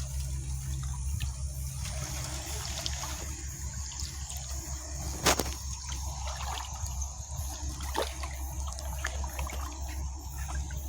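Shallow water trickling and sloshing as someone wades through it, with a few sharp clicks, the loudest about five seconds in.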